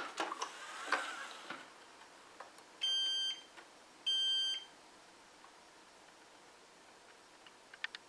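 ZooZee Z70 robot vacuum beeping twice, two identical steady electronic beeps about half a second long and a little over a second apart, as it is seated against its charging dock. Soft knocks and rustles from the vacuum being handled come first.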